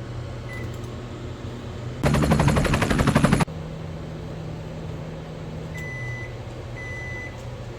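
Microwave oven running with a steady low hum, broken about two seconds in by a loud rattle of rapid pulses lasting about a second and a half. Near the end, three short high beeps about a second apart: the microwave signalling its cooking cycle is done.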